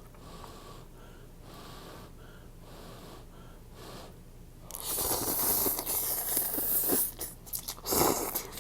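Soft, repeated breaths close to the microphone, then about five seconds in a long, loud slurp of noodles lasting about two seconds, followed by a shorter loud slurp near the end.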